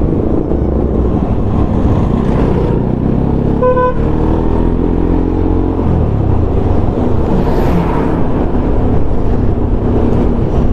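Motorcycle running on the road, heard from the rider, with a steady low rumble throughout. There is a short horn beep just under four seconds in, then the engine note changes pitch over the next couple of seconds.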